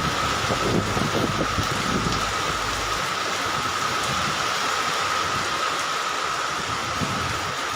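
Heavy rain pouring steadily in a tropical downpour, with a low rumble in the first three seconds that fades out.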